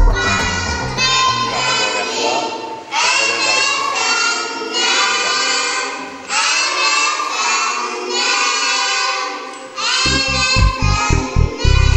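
A group of children singing together in short phrases over background music. The music's low beat drops out a couple of seconds in and comes back near the end.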